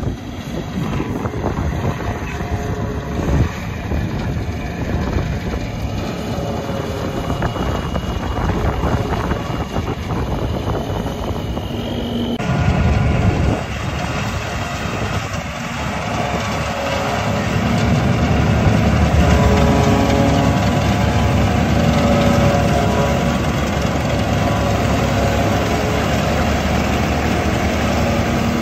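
Tractor engine running steadily, cutting about twelve seconds in to a lower, fuller engine note that grows a little louder.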